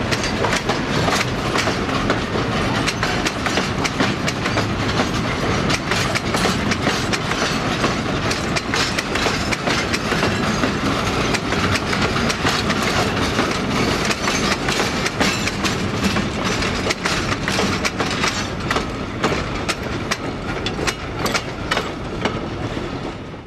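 A train of empty three-foot narrow-gauge steel hopper cars rolling past, its wheels clicking and clanking over the rail joints in a steady run of knocks over a rumble.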